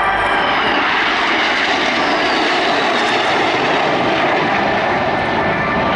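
Formation of Northrop F-5E Tiger II jets passing, their twin General Electric J85 turbojets making a loud, steady jet roar, with a high whine that falls in pitch over the first few seconds as they go by.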